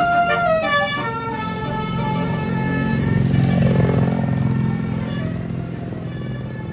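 Multi-tone telolet bus horn finishing a short melody of stepped notes in the first second, then a coach's diesel engine rumbling as the bus passes, swelling around the middle and fading away.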